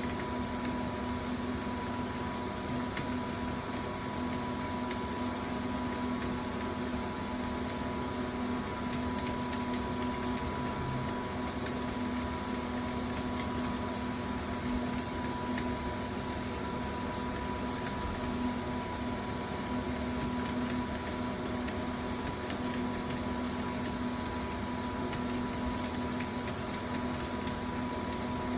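Steady electrical or fan-like hum with a constant low tone over even hiss, unchanging throughout.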